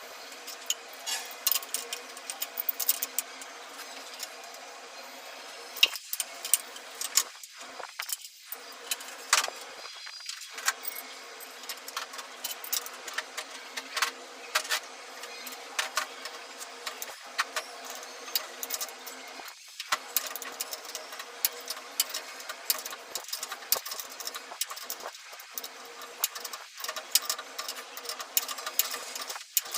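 Many sharp, irregular metallic clicks and light rattles over a steady hiss, like metal parts or tools being handled.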